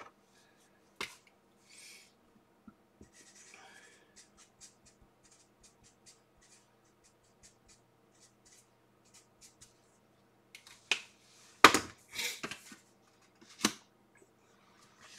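Paper envelopes being handled and opened: faint taps and rustles, then a few louder paper rustles about eleven seconds in and again near the end.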